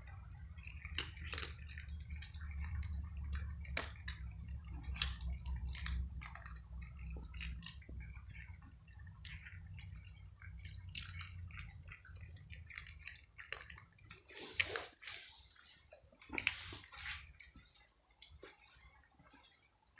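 Several cats crunching dry cat kibble, picking it up off stone paving: a run of irregular crisp crunches and clicks. A low rumble lies under them for roughly the first twelve seconds, then fades.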